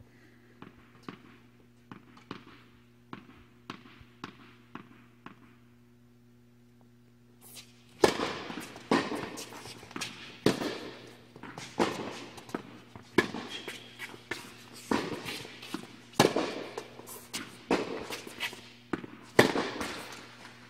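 Tennis balls struck by rackets and bouncing in an indoor tennis hall: faint light taps at first, then about eight seconds in a rally begins, a sharp racket hit roughly every second and a half with ball bounces between, each echoing off the hall. A steady electrical hum runs underneath.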